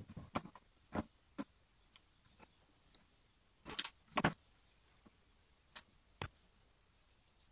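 Scattered clicks and light metallic clinks from pliers and small metal fittings being handled while taking apart an old wooden spirit level. The loudest pair comes about four seconds in, one with a brief metallic ring.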